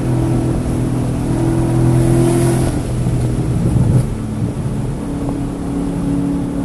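A track car's engine running hard at steady revs, heard onboard, on a session when it was misfiring on cylinders 1, 3 and 4. The engine note holds steady, breaks up about three seconds in with a sharp click near four seconds, then settles into a steady, slightly lower note.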